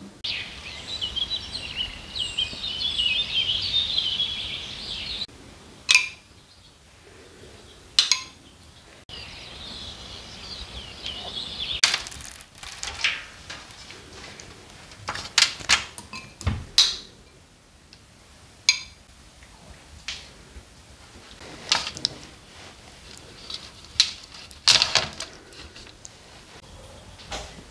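Small birds chirping for the first few seconds and again around ten seconds in, then scattered clinks and knocks of a metal spoon against a glass bowl and a steel baking tray.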